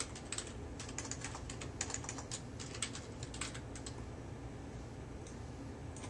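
Computer keyboard keys clicking in a quick, irregular run of typing, thinning out after about three and a half seconds to a couple of lone clicks near the end.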